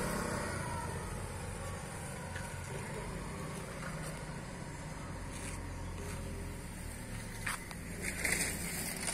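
A motor vehicle engine running and fading away over a steady low outdoor rumble, with a sharp click about seven and a half seconds in.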